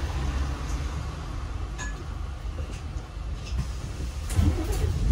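Inside an Alexander Dennis Enviro 400 MMC double-decker bus: a steady low engine and road rumble, with light clinks and rattles from the fittings. The rumble grows louder near the end.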